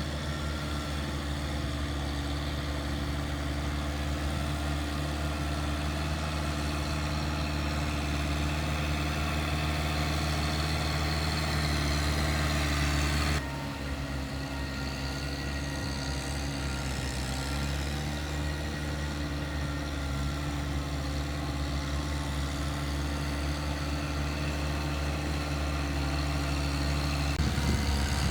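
Tractor engine running steadily, its level dropping abruptly about halfway through.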